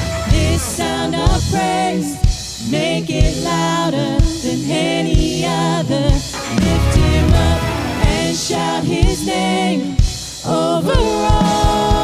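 Worship band playing a contemporary Christian song: a sung vocal melody over a drum kit with regular drum hits.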